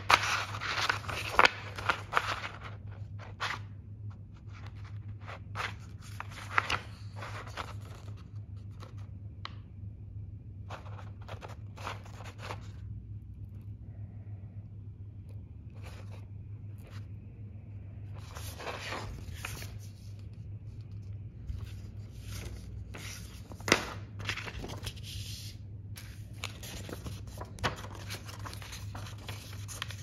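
Paper pages of a printed instruction booklet being handled and turned, in irregular clusters of rustling and crackling with quiet gaps between them. A steady low hum runs underneath.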